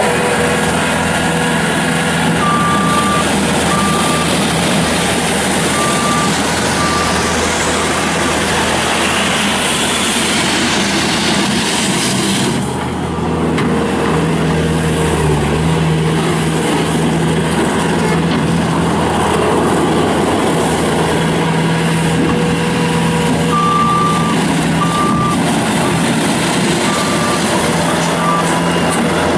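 Bobcat S300 skid steer loader with its Kubota diesel engine running steadily while it is driven about. Its reversing alarm beeps in two spells, a few seconds in and again near the end.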